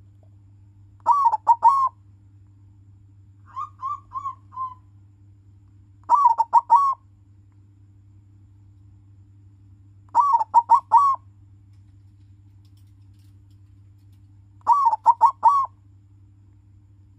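Zebra dove (perkutut) of the silver colour morph cooing: five short phrases a few seconds apart, each a quick run of about four rolling notes lasting about a second. The second phrase is fainter.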